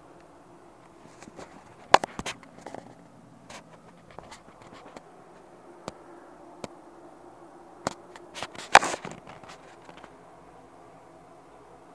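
Irregular scrapes, scratches and sharp clicks very close to the microphone, heaviest about two seconds in and again near nine seconds in. This is handling noise as the recording device rubs and knocks against blanket and fabric.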